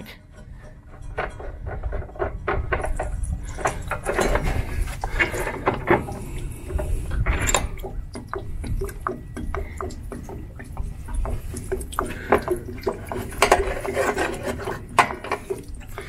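Vinegar-water solution glugging and splashing out of an RV water heater tank's drain hole onto concrete, in irregular gulps that start a few seconds in. The tank is draining with its pressure relief valve closed, so it empties slowly in glugs.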